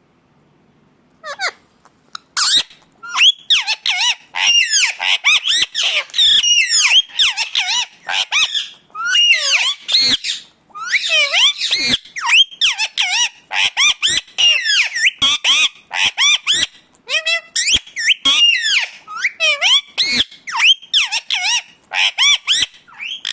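Indian ringneck parakeet calling: long runs of short, shrill, rapidly bending squawks and chatter in quick succession, starting about a second in.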